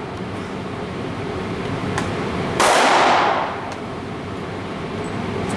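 A single loud gunshot about two and a half seconds in, with its report ringing off the indoor range for most of a second. Fainter sharp pops come now and then over a steady background rumble.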